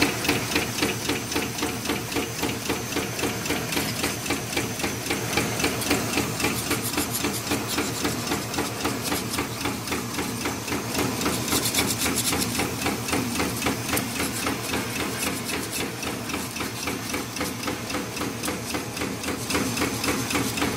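Radial-wire spot welding machine for electric fan guards running, its welding head clacking in a fast, steady rhythm of several strokes a second as it welds wires onto the inner ring. A short burst of hiss comes near the middle.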